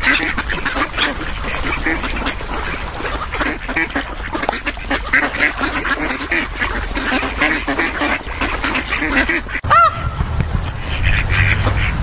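A flock of ducks quacking, many short calls overlapping without pause. Just before ten seconds there is a brief break, after which the calling goes on over a low rumble.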